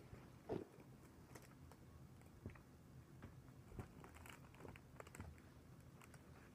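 Faint, scattered clicks and light taps from handling a clear plastic clamshell box of macarons, with one louder knock about half a second in.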